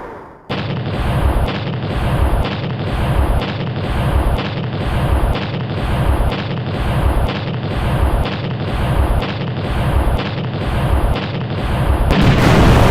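Synthesized lightning-blaster sound effect: a heavy, noisy blast that starts suddenly and pulses evenly, about three beats every two seconds, then gives way near the end to a louder, steadier explosion noise.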